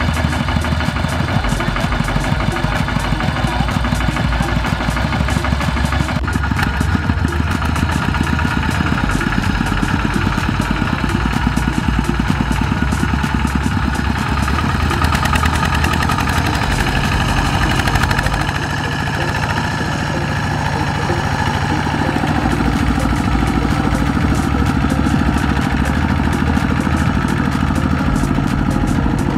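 Single-cylinder diesel engine of a two-wheel walking tractor running steadily under load as it pulls a loaded trailer through paddy mud. The engine note eases off slightly about two-thirds of the way through, then steadies again.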